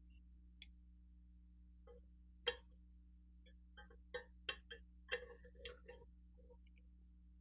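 Sharp metallic clicks and clinks of a Savage Model 170 pump-action rifle's two-piece bolt being slid into the receiver and worked into place, over a faint steady hum. One sharp click comes about two and a half seconds in, then a cluster of clicks between about four and six seconds.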